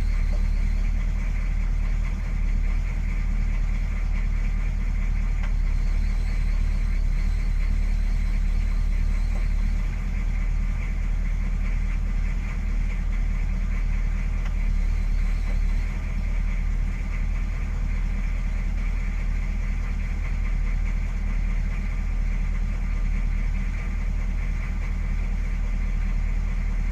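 Chevrolet CUCV M1008's 6.2-litre V8 diesel engine idling steadily, heard from inside the cab.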